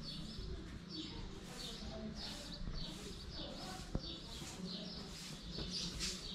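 Small birds chirping over and over, about two short chirps a second, with a single faint knock about four seconds in.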